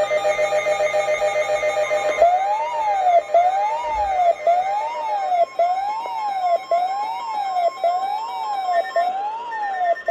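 Electronic emergency alert tones for a weather warning: a rapidly pulsing chord of steady tones for about two seconds, then a siren-like tone that sweeps up and down a little more than once a second.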